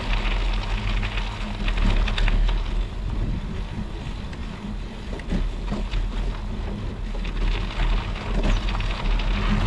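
Studded fat-bike tire rolling over lake ice and crusted snow: a steady rumbling hiss with scattered short crunches and clicks.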